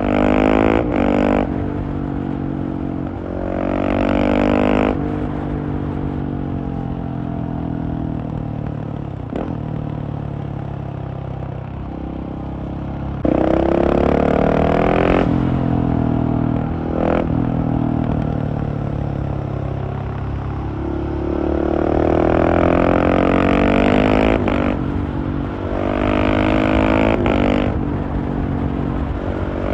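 Husqvarna 701's single-cylinder engine through a LeoVince Nero exhaust, heard from the bike while riding. It accelerates hard several times, pitch rising each time and cutting briefly at the gear changes, with steadier running between.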